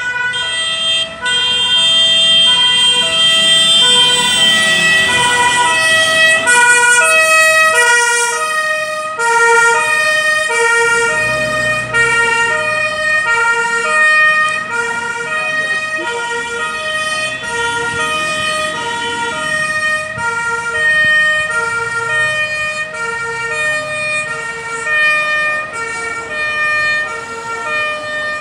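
Two-tone siren of a German fire engine (the Martinshorn), switching between a low and a high note, each held about half a second. It is loudest about four to eight seconds in, then a little fainter.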